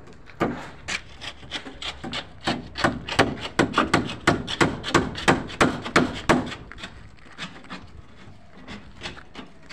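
Wooden formwork boards being worked by hand with rapid, even strokes, about three a second. The strokes are loudest for the first six seconds, then grow fainter and sparser.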